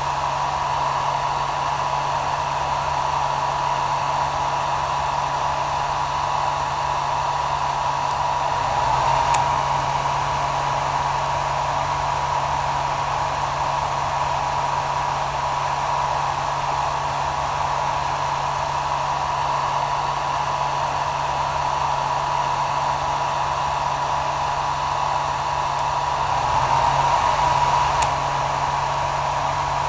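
Hair dryer running steadily: even airflow noise with a steady high whine and a low motor hum, swelling slightly twice, about nine seconds in and again near the end.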